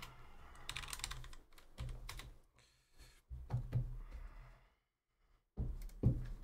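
Typing on a computer keyboard: runs of quick key clicks broken by two short pauses.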